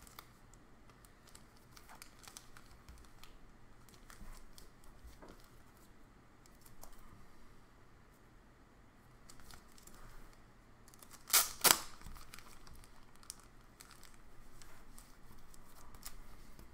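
Trading cards and their clear plastic sleeves and wrappers being handled, crinkling and rustling with small clicks. About two-thirds of the way through come two short, loud, sharp sounds a fraction of a second apart.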